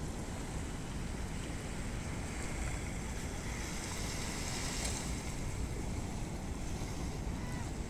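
Wind buffeting the microphone over a steady wash of water at the shoreline, the hiss swelling briefly about four to five seconds in.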